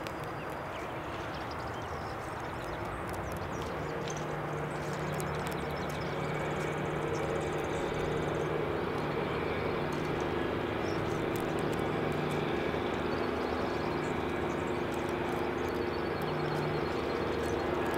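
A steady engine drone with a low hum that sets in about four seconds in and grows slowly louder.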